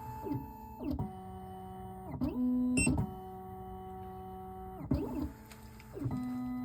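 Computerized key-cutting machine's stepper motors driving the carriage: a run of steady motor whines that changes pitch every second or so, each starting and stopping with a quick rise and fall in pitch and a short break between moves.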